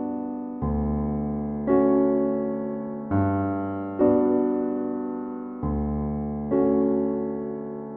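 Background music: slow electric piano chords, each struck and left to fade, changing about once a second.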